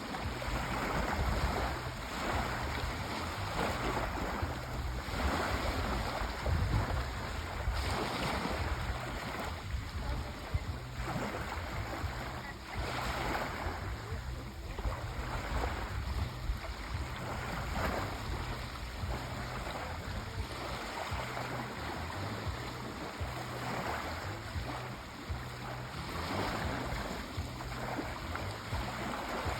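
Sea waves washing in and drawing back, a steady rushing hiss that swells every couple of seconds over a constant low rumble.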